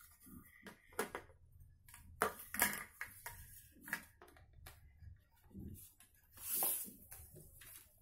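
Scattered plastic clicks, knocks and rubbing as the flexible plastic hose is handled and pushed onto the body of a JK-8 handheld vacuum cleaner, with the motor switched off; a longer scraping rustle comes about six and a half seconds in.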